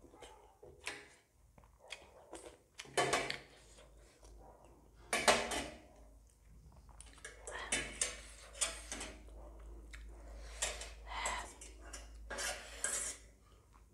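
A metal spoon clinking and scraping against a large metal plate while eating noodle soup, with chewing between the strokes. A sharp clatter about five seconds in is the loudest sound.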